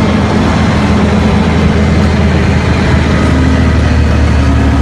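Large diesel engine of a loaded Caterpillar mining haul truck running steadily as the truck drives.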